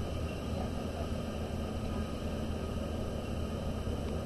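Steady background hum and hiss with no distinct events: room tone.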